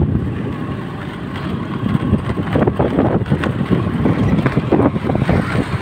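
A Suzuki Access 125 scooter's small single-cylinder four-stroke engine runs as it rides over a rough gravel track, with frequent short knocks and rattles from the bumps.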